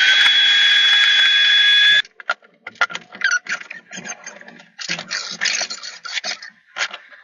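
Benchtop thickness planer running steadily with a high whine as a board feeds through; it cuts off about two seconds in. Then light scratches and taps follow from a pencil and tape measure marking lines across the wooden boards.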